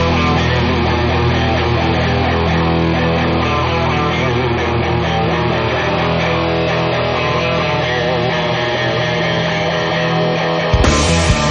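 Guitar-led rock music with sustained chords. Near the end it breaks abruptly into a heavier section with drums.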